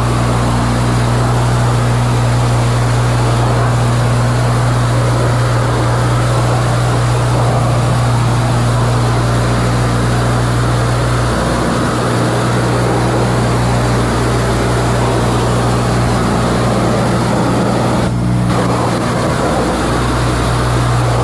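High-pressure car wash wand spraying water onto a car, a steady hiss of spray over a constant low hum from the wash pump.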